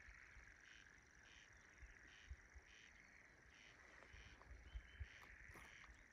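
Faint night sound of insects in a grassy field: a steady high trill with a chirping pulse repeating about twice a second. Low bumps of wind or handling on the microphone sit underneath.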